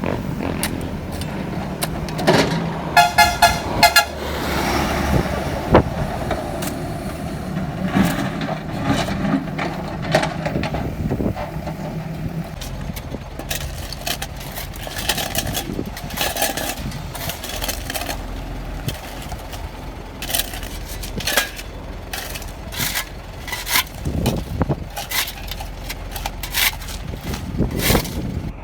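Vehicle horn tooting several quick short honks about three seconds in, over steady vehicle engine and traffic noise.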